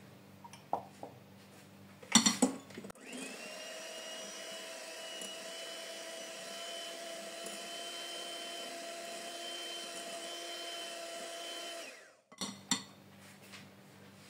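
Electric hand mixer beating liquid cake batter in a glass bowl: a steady motor whine for about nine seconds that cuts off suddenly. Before it starts and after it stops come a few clicks and knocks as the mixer is picked up and set back down.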